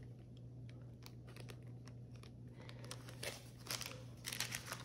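Clear plastic bag crinkling as it is handled and set down, with a cluster of crinkles and light clicks in the last two seconds, over a low steady hum.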